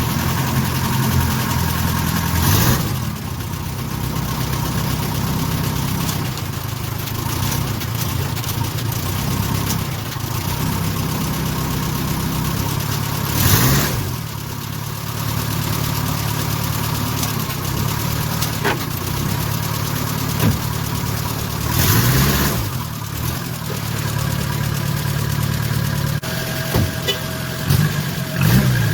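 Renault R10's rear-mounted four-cylinder engine running at the first start after a rebuild. It holds a steady note, and the revs rise briefly four times.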